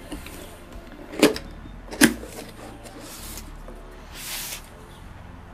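A cardboard gun box being handled and opened: two sharp knocks under a second apart, then a brief scraping rustle of the lid and foam a little later.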